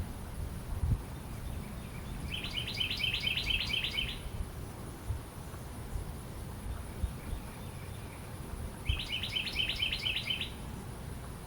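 Carolina wren singing twice, each song a fast run of about eight repeated notes lasting under two seconds, the two songs about six seconds apart.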